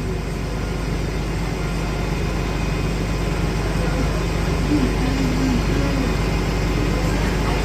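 Transit bus idling while stopped, a steady low engine drone. A faint voice is heard briefly near the middle.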